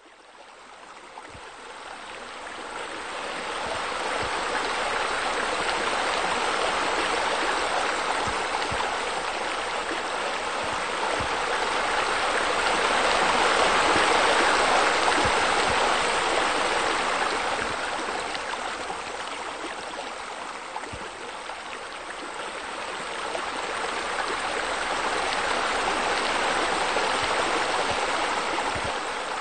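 Steady rushing of water falling from a rock waterfall into a pool. It fades in at the start, is loudest around the middle, dips a little later on and swells again near the end.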